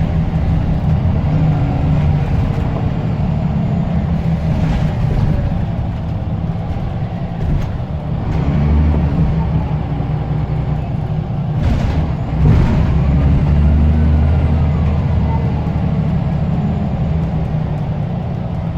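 Scania L94UB single-deck bus's diesel engine running on the move, with a faint turbo whistle that rises and falls, climbing and dropping again near the end. A few brief sharp sounds cut through the engine noise.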